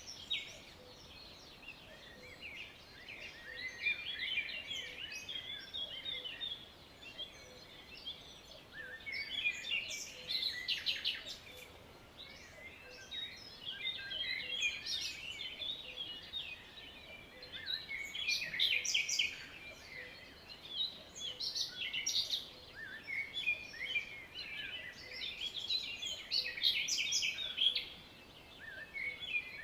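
Songbirds chirping and twittering together in overlapping bursts every few seconds, over a faint steady outdoor hiss.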